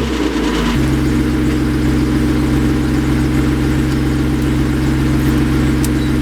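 BMW E36 engine idling just after starting, its note changing about a second in and then holding steady.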